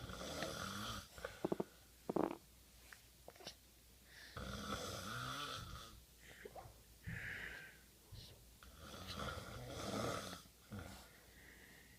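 A man snoring, with long rough breaths about every four to five seconds and a few short clicks between them.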